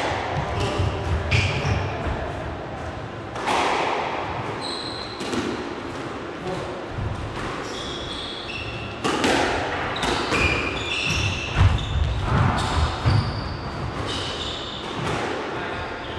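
A squash rally: the ball hit by rackets and smacking off the court walls at irregular intervals, with many short, high squeaks from shoes on the court floor, echoing in the enclosed court.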